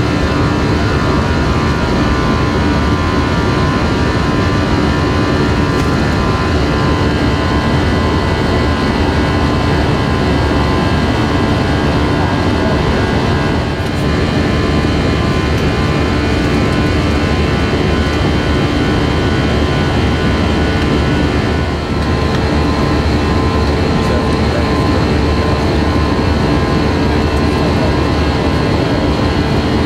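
Jet airliner engines and cabin noise heard from a passenger seat: a steady, dense drone carrying several constant whining tones. The level dips briefly twice, about 14 and 22 seconds in.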